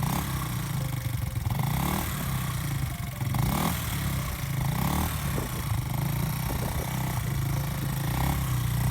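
Off-road vehicle engine running and revving, its pitch rising briefly several times.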